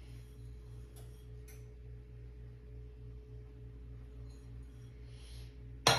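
A steady low hum with two faint taps early on, then a sudden loud clatter just before the end as kitchen bowls are handled and knocked on the countertop.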